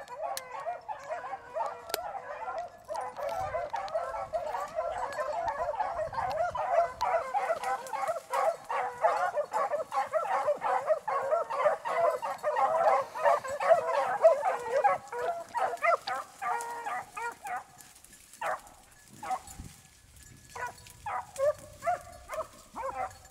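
A pack of beagles baying in full cry on a rabbit's scent trail, many voices overlapping. About 17 seconds in the chorus thins out to a few scattered bays.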